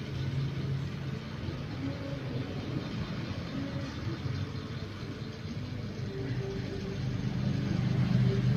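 Kitten purring close to the microphone: a low, steady rumble that eases off in the middle and grows louder again near the end.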